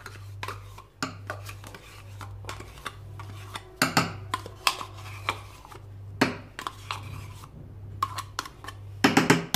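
A spoon scraping thick plain yogurt out of a plastic cup and tapping against the cup and a small metal saucepan of custard cream: irregular clicks and scrapes, with a cluster of louder taps near the end. A low hum runs underneath.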